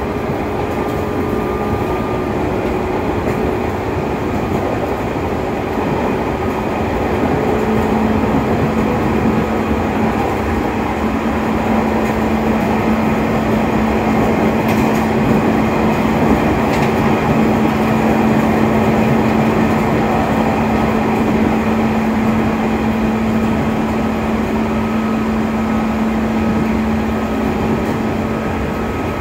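Running noise of a JR 205 series 600 electric train with field-added excitation control, heard inside the carriage while it travels at speed: a steady rumble from wheels and track. A steady low hum comes in about seven seconds in and holds, as the sound grows slightly louder.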